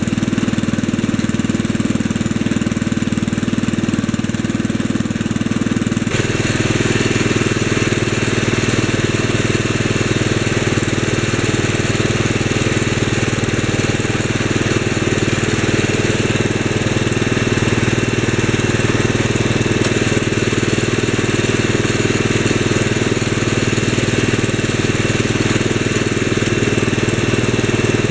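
1965 Wheel Horse 875's 8-horsepower engine running steadily while its Sundstrand hydrostatic transmission is tested after a linkage repair. The sound changes abruptly about six seconds in, then runs steady again.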